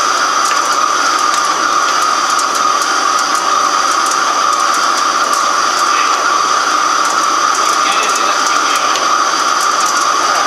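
Microcut BNC-6500 heavy-duty flat-bed lathe running with a long metal workpiece spinning, a loud steady machining noise with a high whine over a hiss and scattered faint ticks.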